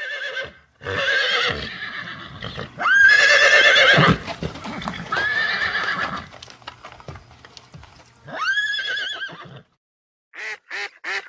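Horse whinnying: about five loud neighs with a quavering, shaking pitch, with faint knocks between them. Near the end a quick run of short calls begins.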